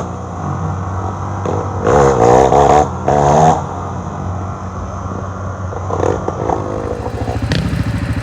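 A motor vehicle engine running steadily, with a faster pulsing engine sound coming in near the end. Voices are heard briefly a couple of seconds in.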